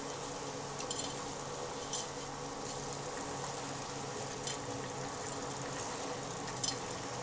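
Plastic slotted spatula stirring spaghetti in a stainless steel saucepan, with a few light clicks against the pot, over a steady low hum.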